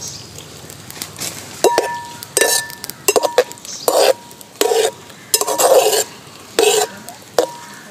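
A metal spoon stirring in an uruli cooking pot, knocking against its sides in a string of about nine irregular clinks, some leaving a brief ringing tone.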